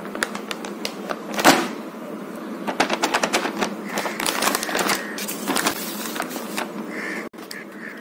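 Clear plastic wrapping of an art kit crinkling and crackling as it is handled: a quick, irregular run of sharp clicks and rustles, loudest about one and a half seconds in.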